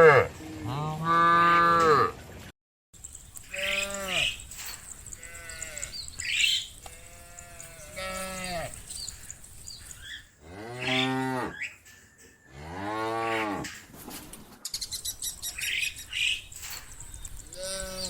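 Cows mooing one after another: about eight drawn-out calls, some deep and some higher, each lasting a second or so. There is a brief dead gap about two and a half seconds in.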